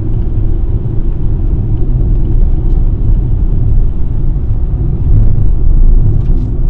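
Car driving along a road: a steady, loud low rumble of road and engine noise.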